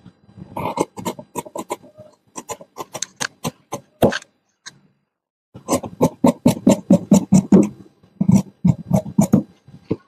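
Tailor's shears cutting through khaki uniform fabric in quick, rhythmic snips, each a sharp crunch of blade through cloth, with a short pause about four seconds in before the cutting resumes.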